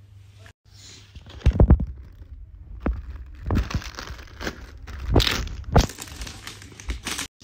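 Foil snack packet crinkling and being torn open by hand, with several dull bumps as the bag is handled.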